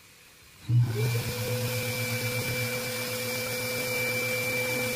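An electric machine motor switching on a little under a second in, spinning up with a rising whine, then running steadily with a low hum and a thin high whine.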